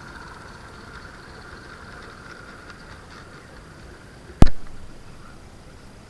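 A faint steady hiss, then one loud sharp knock about four and a half seconds in that dies away within half a second.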